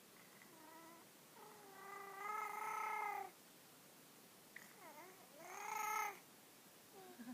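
Domestic cat meowing repeatedly: two long drawn-out meows, with shorter chirps before and between them.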